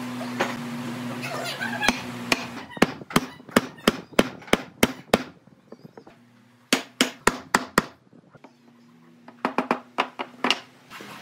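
Hammer strikes on a pine chair leg, knocking its tenon down into a mortise in the base beam. They come in three runs of quick blows, about three to four a second, with short pauses between.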